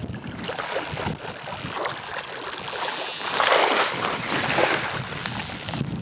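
Wind noise on the microphone over flowing river water, with a louder swell of noise about halfway through.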